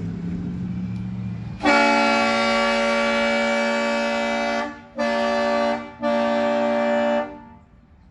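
Kleinn train horn, an air horn fed by an onboard air compressor and tank, blasting a loud multi-tone chord: one long blast of about three seconds, then two shorter blasts. A steady lower hum runs before the first blast.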